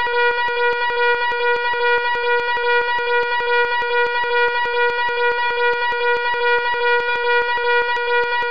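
Fire alarm sounding continuously: a loud, steady, buzzing tone rich in overtones, with a fast, even pulse running through it.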